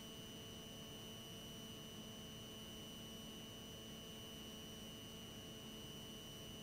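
Near silence on an aircraft intercom line between transmissions, with only a faint steady electrical hum and whine at several fixed pitches.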